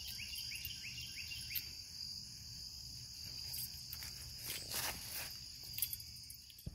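Steady high-pitched trilling of insects in the woods. Near the end come a few footsteps and rustles, then a knock of the recording phone being handled, and the sound cuts off suddenly.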